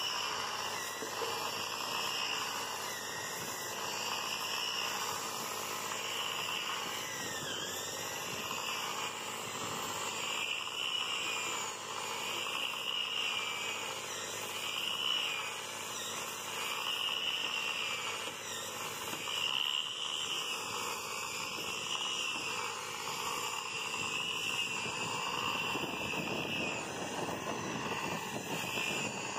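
Handheld electric rotary sander with a 60-grit paper disc running against a wooden boat hull, a steady high whine that wavers slightly in pitch as it grinds the dirty surface off the planks.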